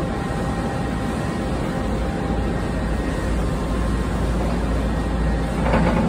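Koch KGT25/10 wire drawing machine running: a steady mechanical hum and whir with a few faint whining tones. A brief louder burst of noise comes near the end.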